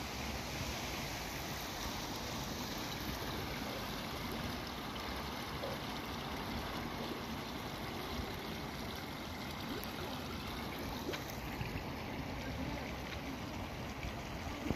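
Storm water surging up around a lifted manhole cover and running across the flooded road: a steady rushing and gurgling of water, the sign of a storm drain overloaded by a cloudburst.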